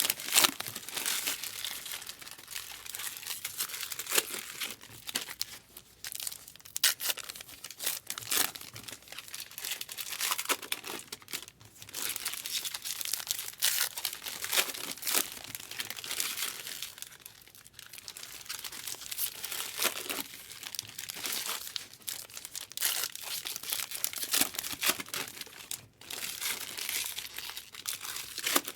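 Trading card pack wrappers being torn open and crinkled, with cards handled in between: an irregular run of sharp crackles and rustles.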